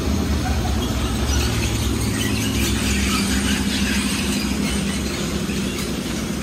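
Belanger car wash wrap-around brushes spinning against a car's front and side, with a steady machine hum under the scrubbing, swishing noise of wet cloth on the body. The scrubbing grows louder in the middle.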